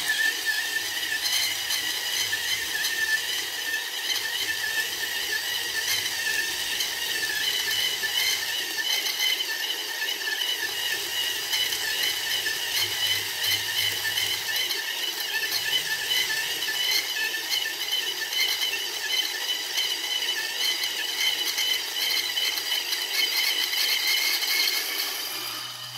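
Gawoody electric motor kit turning a 1Zpresso K Pro hand grinder's burrs, grinding light-roast coffee beans at an espresso setting: a steady high-pitched motor whine over the grinding of the beans, running without stalling. It drops off near the end as the beans are used up.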